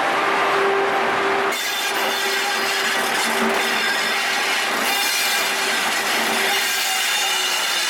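Pair of Indian Railways WCAM-2P electric locomotives passing close at low speed over turnouts: steady noise of steel wheels on rail and the locomotives' running equipment, with a steady hum throughout. The noise turns brighter and harsher about a second and a half in as the locomotive draws alongside.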